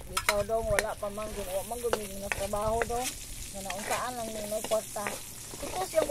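Metal spatula scraping and clanking against a steel wok, stir-frying chopped onion and garlic that sizzle in hot oil. The scrapes come as a run of wavering squeals with sharp taps between them.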